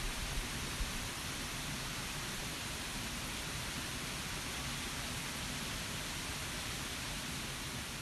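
Water falling at an ice-bound waterfall: a steady, even rush of noise with no pitch or rhythm.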